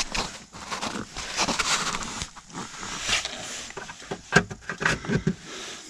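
Hands handling dash trim pieces and bolts: irregular rustling and scraping, with a few sharp clicks and knocks about four to five seconds in.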